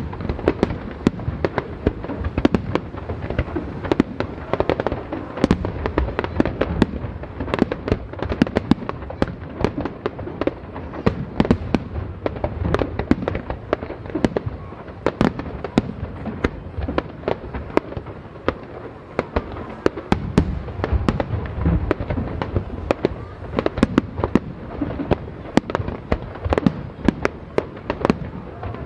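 Fireworks display: aerial shells bursting in quick, irregular succession, several sharp bangs a second over a continuous low rumble.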